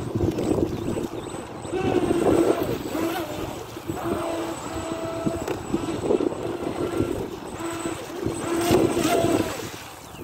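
Radio-controlled speedboat's motor whining at high speed as the boat skims across the water, swelling louder about two seconds in and again near the end as it passes and turns.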